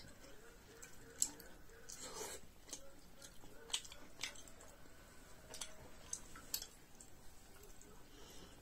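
Faint chewing of a soft bite of iron-pot flatbread, with scattered short mouth smacks and light clicks about a second apart.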